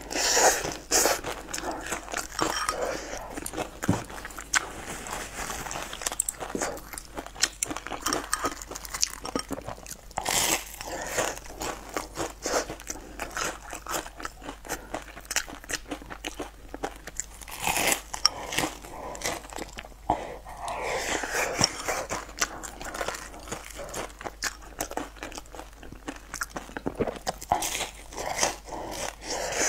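A person biting and chewing a crumb-coated fried patty, crunching through its crust with a steady run of crackly chews. Louder crunchy bites come several times, just after the start and about ten and eighteen seconds in.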